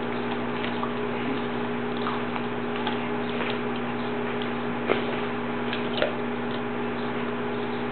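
A dog chewing a raw broccoli floret: scattered soft crunches and clicks, two sharper ones about five and six seconds in, over a steady electrical hum.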